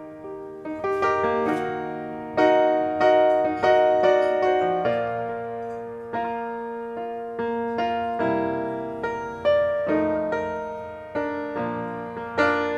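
Slow solo piano playing an instrumental break in a ballad, chords struck one after another and left to fade.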